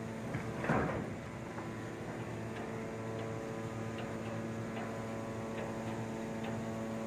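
Steady low machinery hum, made of several fixed tones. About a second in there is a short rush of noise, and faint clicks are scattered through the rest.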